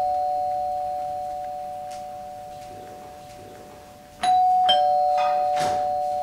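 Ding-dong doorbell chime: two slowly fading notes, high then low. The tail of one ring dies away, and the bell is rung again about four seconds in.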